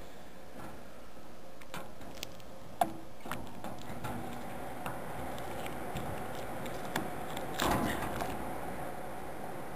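Handling noise: scattered clicks and rustles of hands working an object right next to the microphone, with one sharp click nearly three seconds in and a brief louder rustle near the end.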